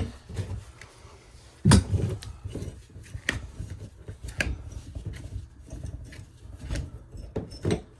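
Shower valve trim being unscrewed and taken off by hand: scattered metallic clicks, light scrapes and knocks of the loosened fitting, with the loudest knock just under two seconds in.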